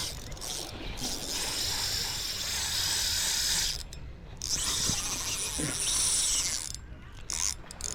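Fishing reel being wound, a geared whirring in two long spells with a short pause between them.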